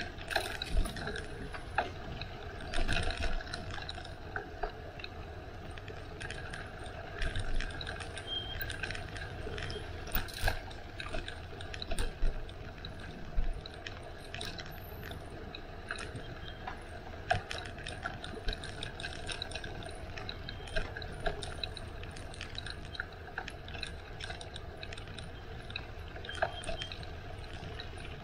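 Bicycle being ridden: a steady rolling rumble of the tyres with many short clicks and rattles from the bike's mechanism and bumps in the path.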